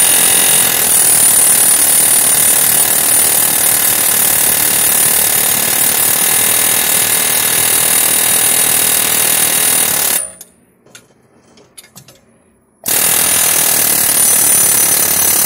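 Pneumatic air hammer with a chisel tip rapidly striking the socket on a hydraulic puller's pushing screw, to shock a rust-seized axle shaft out of its hub while the puller holds it under pressure. It runs in one burst of about ten seconds, stops, and starts again for a shorter burst near the end.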